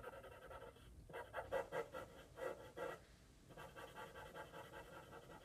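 Black Sharpie marker rubbing rapidly back and forth on paper, colouring in a small area with a faint squeaky scratching. It comes in three runs of quick strokes with short pauses between them.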